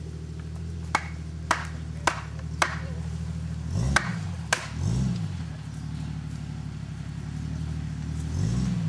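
Off-road trial vehicle's engine idling, with three brief revs that rise and fall, two close together in the middle and one near the end. During the first half there are about six sharp metallic pings, roughly half a second apart.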